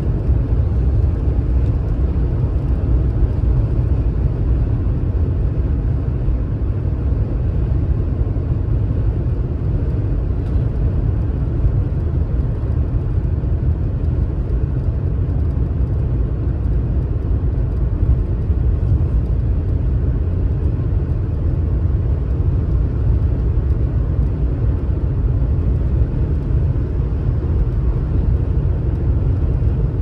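BMW 760 V12 sedan under way at a steady speed: an even low rumble of engine and road noise that holds without change.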